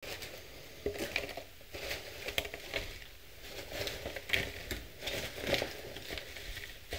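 Mixed salad greens rustling as they are shaken and pulled by hand out of a thin clear plastic clamshell container onto a tray, the plastic crinkling and crackling irregularly throughout.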